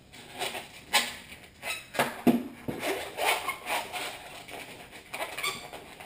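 Long latex twisting balloon being twisted and squeezed by hand into a balloon giraffe, giving irregular rubbery squeaks and rubbing noises.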